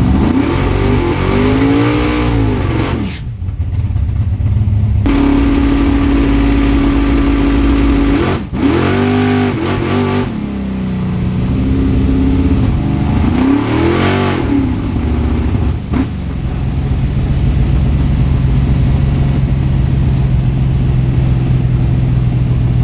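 Drag race car's engine, heard from inside the cockpit, revving up and down several times, with long stretches held at steady revs. This is the launch on which the two-step launch limiter failed.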